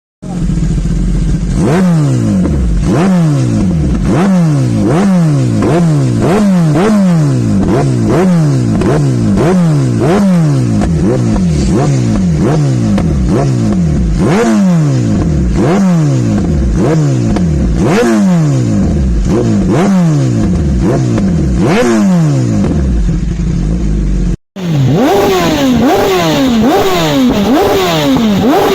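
Motorcycle engine revved through its exhaust with repeated throttle blips, each pitch jumping up and falling back, in quick succession. Near the end the sound cuts out for a moment and a second motorcycle is heard revving the same way.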